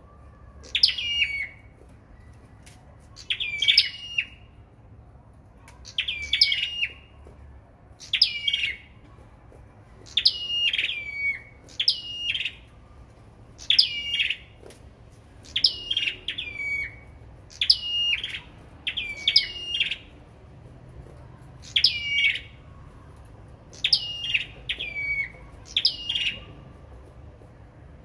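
Small caged songbirds, the birds Vietnamese keepers call 'sâu đầu đỏ', singing against each other: short, high, chirpy phrases with falling notes, repeated every second or two, some coming in quick pairs.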